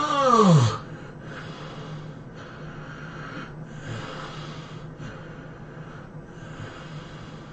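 A sleeping person's loud voiced snore, its pitch rising then falling, ending under a second in, then heavy breathing in and out through the nose and mouth, about one breath a second.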